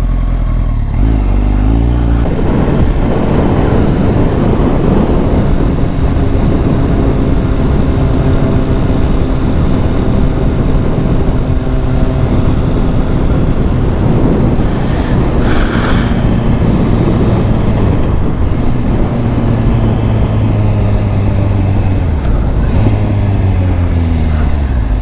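Motorcycle engine running while riding, with heavy wind rush on the microphone. The engine pitch drops near the end as the bike slows.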